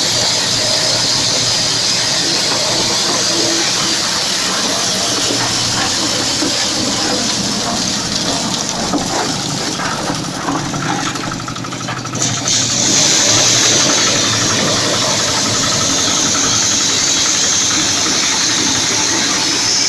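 Diesel-powered corn thresher running, its engine and threshing mechanism making a steady, loud mechanical din with a hiss; the sound dips briefly a little past the middle, then comes back slightly louder and brighter.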